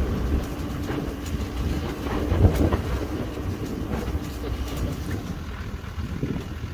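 A ute driving slowly over a rough dirt track, its engine and tyres giving a low rumble under constant rattling and clicking from the tray and gear on the back, with one louder knock about two and a half seconds in.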